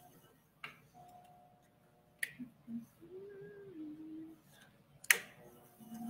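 Sharp taps at the foot of a leather-hard clay urn on a pottery wheel as it is centered for trimming: three distinct taps, the loudest about five seconds in, with a faint wavering low hum between them.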